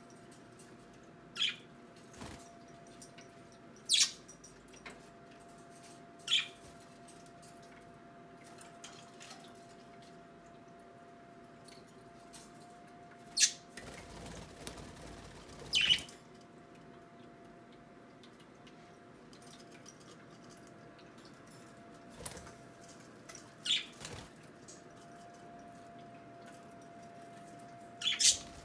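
Budgerigars giving short, scattered chirps, about seven over the span, over a faint steady hum.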